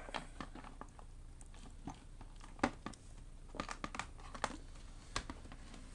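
Scattered small clicks and crackles of plastic from a laptop case being handled and worked loose, with a sharper click about two and a half seconds in and a few more near the middle.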